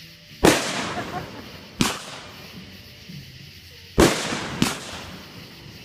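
Consumer aerial fireworks going off: four sharp bangs, about half a second in, near two seconds, and two close together around four seconds. Each bang trails off in a fading rumble.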